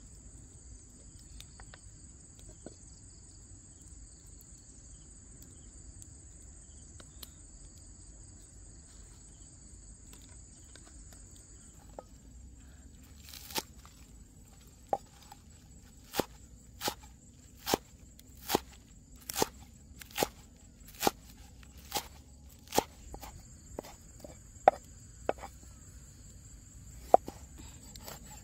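Insects trilling steadily in a high pitch; about halfway through, a knife starts chopping spring onions and leafy greens on a round wooden board, sharp even chops a little more than one a second, louder than the insects.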